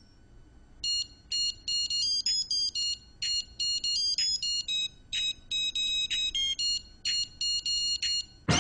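Digital wristwatch beeping: one beep, then from about a second in a fast rhythmic string of short high electronic beeps at about four a second, stepping up and down in pitch like a beeped tune. A full music track cuts in loudly just before the end.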